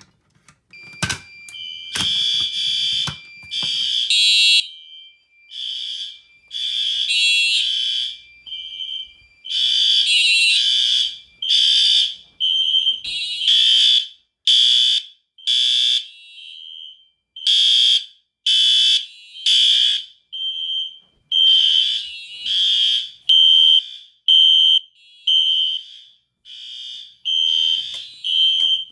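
A Notifier BG-12LX pull station is pulled with a sharp click about a second in. Several fire alarm horns, among them a Mircom horn and System Sensor SpectrAlert horns, then start sounding loud, shrill blasts that repeat out of step with one another, so the pattern is irregular.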